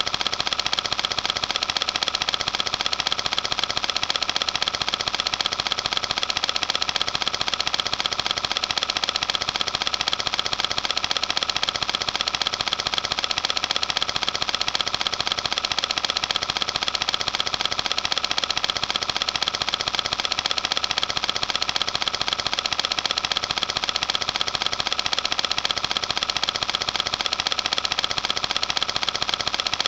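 Film projector running: a steady, fast, even mechanical clatter of the film being pulled through the gate, at an unchanging level throughout.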